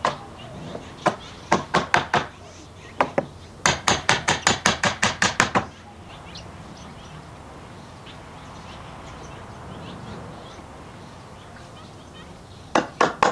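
Steel hammer striking a wooden frame to drive its mortise-and-tenon joints home: quick runs of sharp knocks, the longest a fast string of about a dozen blows, then a pause of several seconds before a few more near the end.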